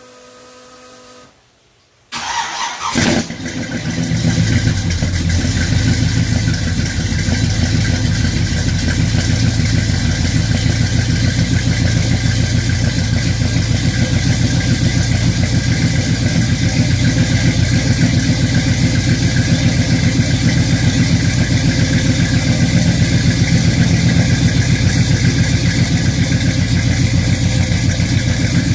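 1969 Pontiac GTO's 428 big-block V8 with headers and Flowmaster mufflers, cold-started after sitting five days: it cranks briefly about two seconds in, fires, and settles into a steady idle, heard close to the tailpipe.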